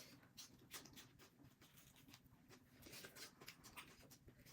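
Near silence with faint eating noises: soft, scattered clicks and smacks.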